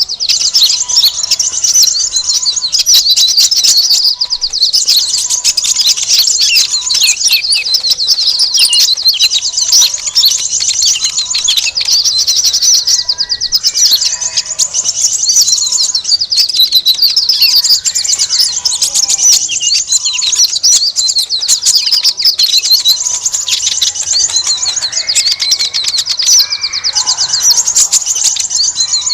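A loud, dense chorus of many small birds chattering and chirping rapidly without a break. It is a bird-trapping lure recording of agitated small birds, used to draw sunbirds and other small birds in.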